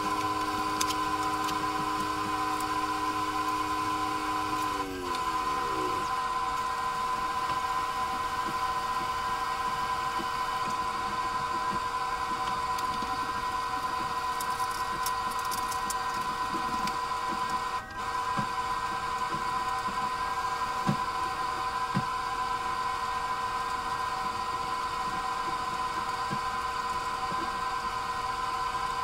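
Steady electric motor hum from a running household appliance, made of several fixed tones. A few of the lower tones slide down in pitch and die away about five seconds in, and a couple of faint knocks come later.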